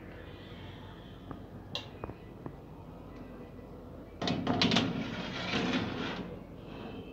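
A metal baking tray scraping and clattering as it is slid into a countertop electric oven along its rails, starting suddenly about four seconds in and lasting about two seconds, after a few light clicks.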